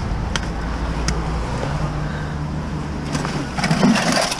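Steady road traffic noise with the low hum of a running vehicle engine. Two short clicks come in the first second or so, and a brief louder burst of noise comes near the end.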